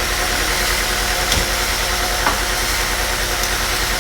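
A machine running steadily with a fast, even low pulse, with two light knocks a second apart near the middle.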